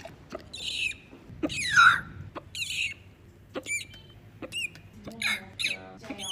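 Squeaky hiccups from a woman: about eight short, high-pitched squeaks, a little more than one a second. Many of them arch or slide down in pitch.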